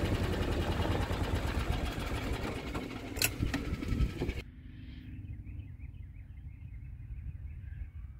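Golf cart engine running steadily with a low rumble, with a couple of sharp clicks about three and four seconds in. About halfway through it cuts off abruptly to a quiet outdoor background.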